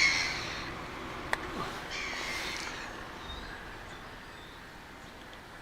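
A bird calling harshly twice, loudest at the very start, with one sharp click about a second and a half in.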